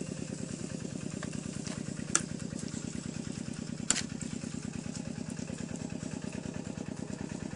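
A small engine running steadily with a fast, even pulse. Two sharp clicks about two and four seconds in, as a metal spoon knocks against the wok.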